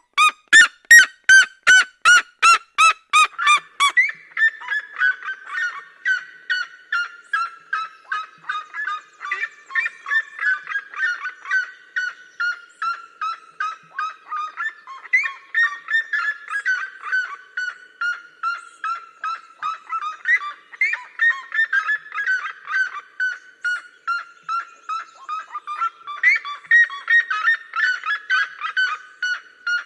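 Red-legged seriemas calling in duet. It opens with a loud run of sharp yelps, about two or three a second, for the first few seconds. After that come long, overlapping series of yelping notes, each falling slowly in pitch, repeated throughout.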